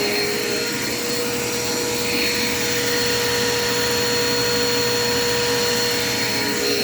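Dirt Devil Quick Power vacuum cleaner running steadily: a constant motor whine over rushing air.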